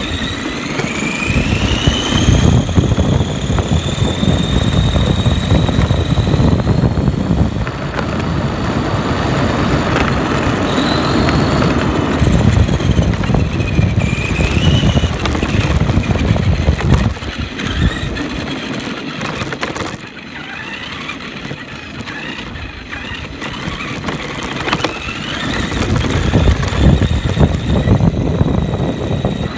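Whine of the ARRMA Granite Voltage RC monster truck's 20T brushed electric motor and gears, gliding up and down in pitch with the throttle, over a heavy low rumble of the tyres on rough concrete, heard from a camera riding on the truck. It eases off for several seconds past the middle, then picks up again.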